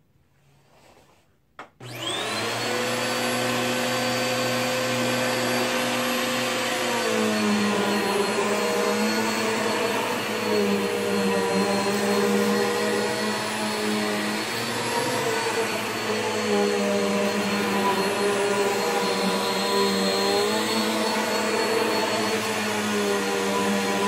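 Bissell PowerForce Helix upright vacuum with a 10-amp motor: a click, then the motor whines up to speed within a second and runs steadily. About five seconds later its pitch drops, then it wavers up and down as the vacuum is pushed back and forth over shag carpet.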